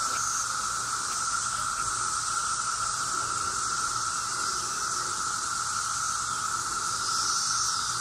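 A loud chorus of periodical cicadas: a steady drone holding one pitch, with a higher hiss above it.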